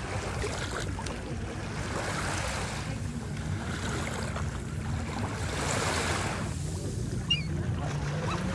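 Gentle surf washing onto the beach with wind rumbling on the microphone, the wash swelling about two seconds in and again around six seconds. A brief high bird call near the end.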